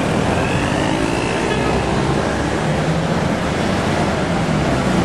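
Busy street traffic: double-decker buses and cars driving past, with a steady low engine tone from the vehicles passing close.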